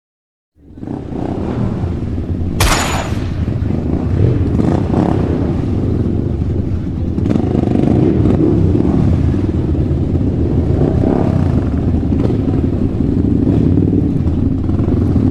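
A loud engine comes in suddenly after a moment of silence and runs steadily with a deep rumble, with a short sharp hiss or crash about two and a half seconds in.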